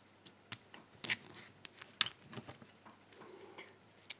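Scattered light metal clicks and taps as a rekeyable padlock's parts are handled and fitted back together during reassembly, the sharpest about one and two seconds in.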